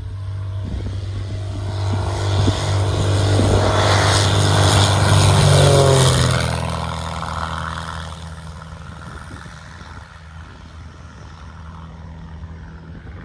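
Great Lakes biplane's propeller engine at full takeoff power, growing louder as it passes close by about five to six seconds in, its pitch dropping as it goes past, then fading as it climbs away.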